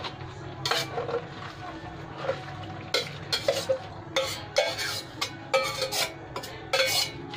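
Metal spoon scraping and clinking against a stainless steel bowl as leafy greens are pushed out of it into a cooking pan: a run of irregular clinks and scrapes, some ringing briefly, over a steady low hum.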